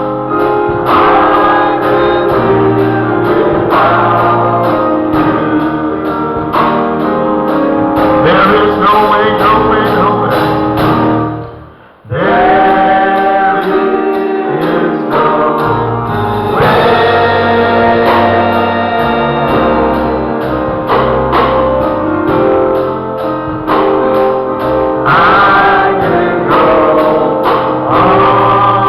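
Gospel music with singing and instruments. About twelve seconds in it drops away almost to nothing and starts again straight away.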